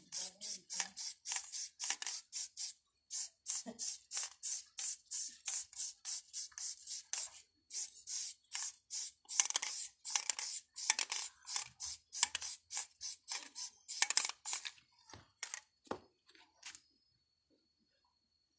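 Aerosol spray-paint can sprayed in quick short bursts, about three hisses a second, the short flicked strokes used to imitate fur. The bursts stop about fifteen seconds in, with a few last ones a second later.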